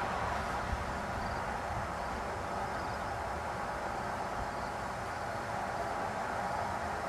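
Steady outdoor background noise: an even hiss with a low, unsteady rumble under it, and no distinct events.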